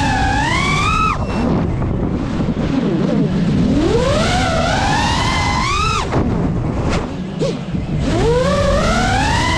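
GEPRC Mark5 FPV quadcopter's brushless motors and propellers whining under throttle. The pitch climbs steeply and cuts off suddenly about a second in and again at about six seconds, as the throttle is chopped, then starts climbing again near the end, over a steady low rush of prop wash.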